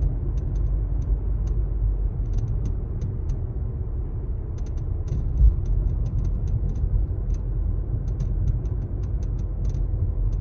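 Irregular light cracking and rattling clicks from the dashboard trim of a Mazda 3 (BP), several in quick clusters, over the steady low rumble of the car heard from inside the cabin. A single low thump about halfway through.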